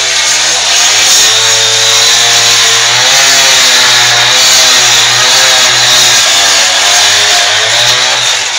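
Hand-held power saw cutting into a concrete wall: a loud, high-speed motor whose pitch wavers as the blade bites and eases. The sound drops off near the end.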